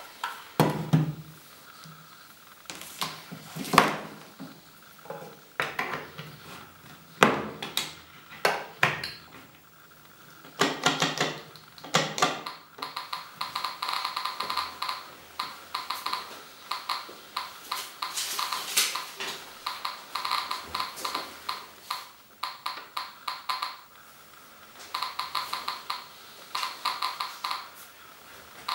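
SV-500 Geiger counter with an SBT-10 pancake probe clicking through its speaker: scattered clicks at first, then, from about halfway, a dense, fast run of clicks that breaks off briefly twice. In the first dozen seconds several loud knocks come from the probe being handled and set down on the table.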